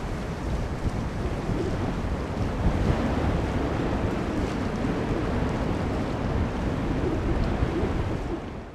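Steady low rumble of a Boeing 737-800's CFM56 jet engines heard from a distance as the airliner rolls out after landing, mixed with wind on the microphone. The sound fades out near the end.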